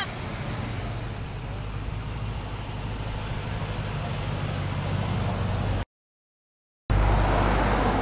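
A line of cars and SUVs driving slowly past at low speed, a steady low engine hum with tyre noise on asphalt. The sound cuts out completely for about a second near the end, then comes back louder as a closer vehicle passes.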